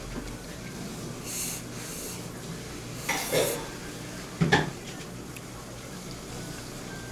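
Utensils and dishes clinking and scraping: a few brief scrapes, and a sharp clink about four and a half seconds in, the loudest.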